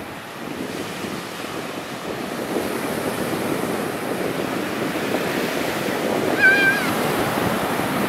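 Small surf breaking and washing up onto a sandy beach, a steady rush that slowly swells. About six and a half seconds in, a brief high call cuts through the surf.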